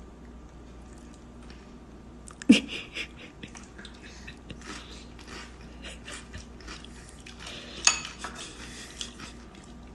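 Small clicks and clinks of eating from a bowl at a kitchen counter, with chewing. Two louder sharp sounds stand out, one about two and a half seconds in and one near eight seconds.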